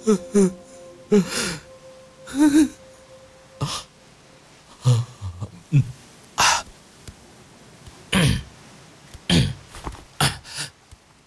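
A man sobbing in short, irregular bursts, with gasping breaths, sniffs and wavering cries. A held violin note fades out during the first few seconds.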